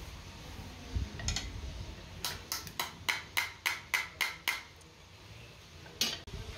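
Small hammer striking a thin sheet-metal patch held in the hand: one knock about a second in, then a quick run of about ten light metallic strikes at roughly four a second, and one more near the end.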